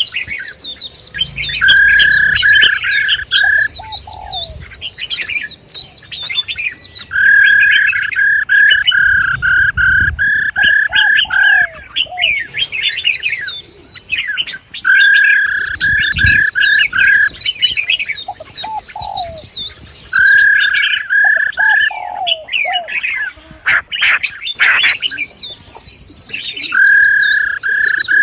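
Songbirds calling and twittering busily, likely more than one bird at once. A run of about ten quick, clear, evenly spaced notes comes back every few seconds over constant high chatter.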